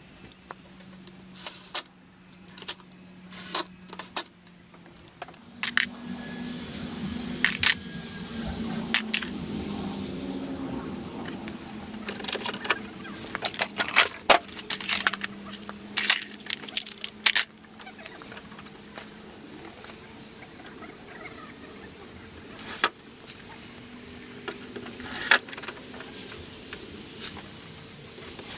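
Irregular sharp clicks, taps and light metallic clatter of hard parts being handled, over a faint steady low hum.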